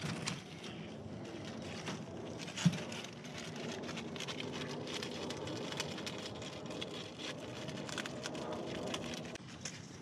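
A rabbit eating dry leaves: crisp crackling and rustling with many small crunching clicks. There is a louder knock about three seconds in, and a faint steady low hum underneath.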